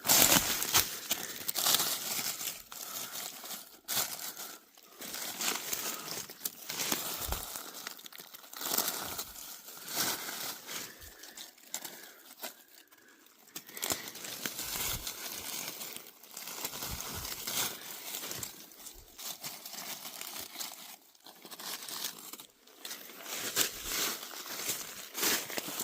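Dry leaves on the forest floor crunching and rustling in irregular crackling bursts.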